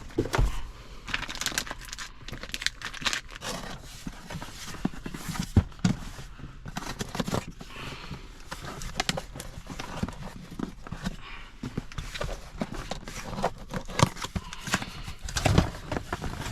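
Packaging being handled: plastic wrapping crinkling and rustling, with scattered short taps and knocks as a car stereo head unit is taken out of its box.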